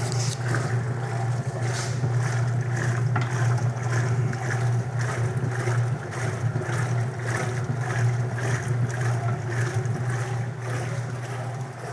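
1937 Maytag Model 30 wringer washer running full of water. A steady low motor hum sounds under an even swish of water from the agitator, a little more than once a second; it runs smoothly and quietly.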